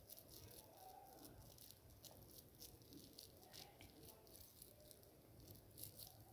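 Faint, irregular crackling and soft patting of fingers squeezing a moist pea kebab mixture into flat patties; otherwise near silence.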